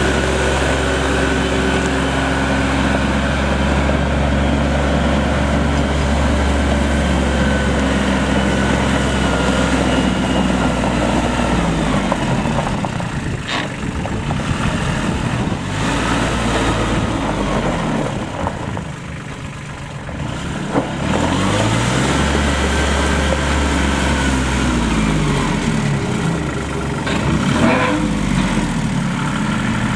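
New Holland TC30 compact tractor's three-cylinder diesel engine running steadily, then its speed rising and falling again and again from about midway, with a brief drop in level around two-thirds of the way through.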